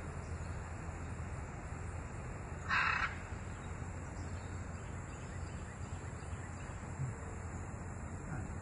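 A scarlet macaw gives one short, harsh squawk about three seconds in, over a steady low background rumble.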